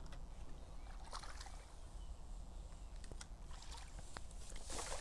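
Lake water sloshing and splashing around a landing net as a freshly netted mirror carp moves in it at the bank's edge, with a louder splash near the end.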